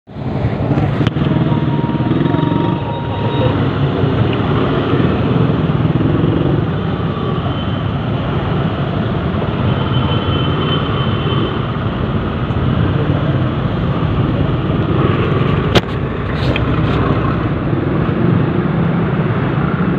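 A motorcycle engine running in slow, stop-and-go traffic, under the steady hiss of rain and wet road with other vehicles around. A single sharp click about four-fifths of the way through.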